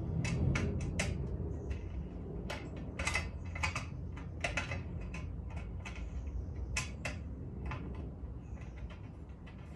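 Irregular clicks and clinks of a metal TV mount's bars and brackets being handled and fitted together, over a steady low hum.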